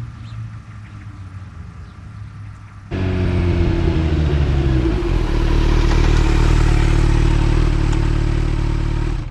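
Kawasaki Z900 inline-four running through a MIVV Double Gun exhaust at a steady idle. About three seconds in, the exhaust note jumps abruptly much louder at nearly the same pitch and holds steady until it cuts off suddenly.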